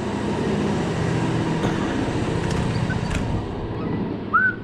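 An air compressor running, a steady mechanical drone. A brief high chirp sounds near the end.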